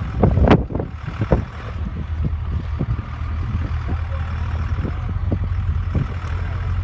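Off-road vehicle engine idling with a steady low rumble, and a few sharp knocks in the first second and a half.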